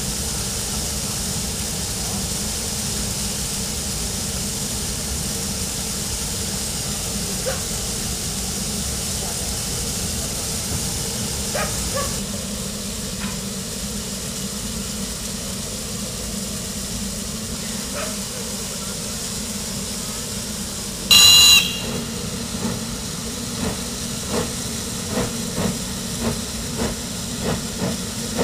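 Steam locomotive hissing steadily with escaping steam, then a short steam whistle blast about three-quarters of the way in, followed by slow exhaust beats that quicken as the locomotive gets under way.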